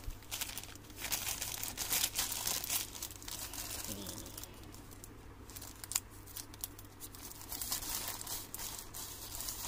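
Plastic packaging and bubble wrap crinkling and tearing as it is pulled open by hand, in irregular rustles.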